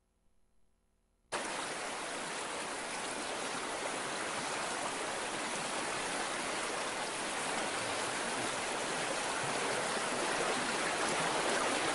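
A steady rushing noise like running water starts abruptly about a second in and grows slightly louder.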